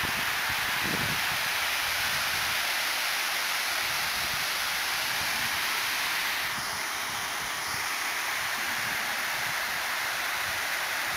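Water pouring over a dam spillway: a steady rush of falling water, dipping slightly a little past halfway.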